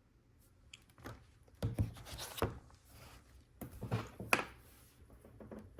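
Hands handling a LEGO Technic build and its parts, making short rustles and light clicks in two brief clusters, one about two seconds in and another about four seconds in.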